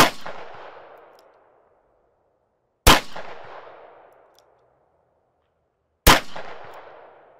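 Three gunshots from a Ruger SP101 Match Champion .357 Magnum revolver, about three seconds apart, each a sharp crack followed by a ringing echo that dies away over about a second.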